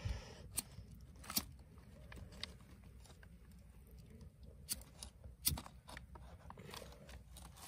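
Faint, scattered crackles and ticks as a lighter's flame catches crumpled newspaper under chopped wood kindling.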